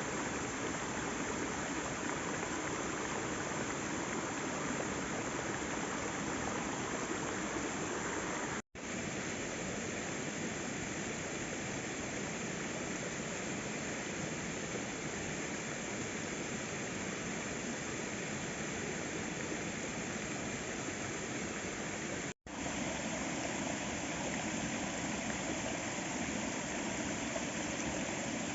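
Steady rush of falling water from a waterfall, broken twice by a split-second gap.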